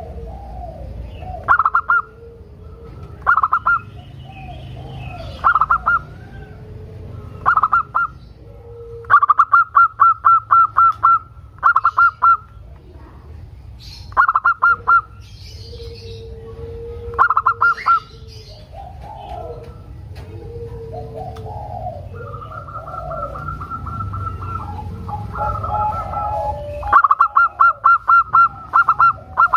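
Zebra dove (perkutut) cooing: repeated phrases of quick staccato notes, some short and some long runs, with softer warbling calls between them.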